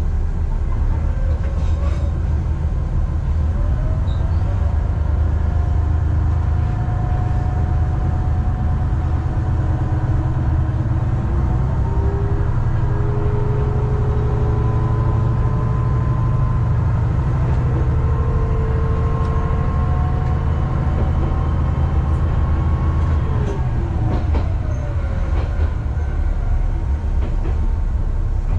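Diesel railcar running along single track with a low, steady engine drone; the engine's pitch climbs slowly as it pulls, then falls away about 23 seconds in. A few light clicks from the wheels on the rail.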